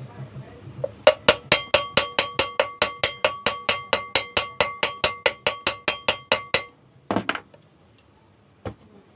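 Metal struck rapidly and evenly, about five ringing taps a second for some five and a half seconds, then it stops; a single thump follows, and a faint click near the end.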